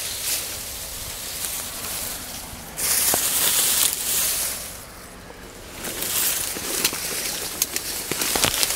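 Dry reeds rustling in uneven surges, with a few sharp clicks near the end.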